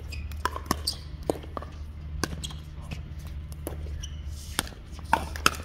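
Pickleball paddles hitting a plastic ball back and forth in a rally: a series of sharp pops at uneven intervals over a steady low hum.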